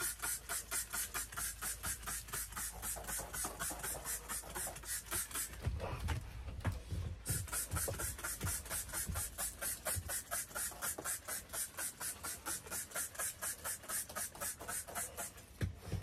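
Trigger spray bottle being squeezed rapidly, a quick even run of hissing squirts about four or five a second. The spraying stops for about a second and a half, a little over five seconds in, while low knocks and rubbing are heard, then picks up again.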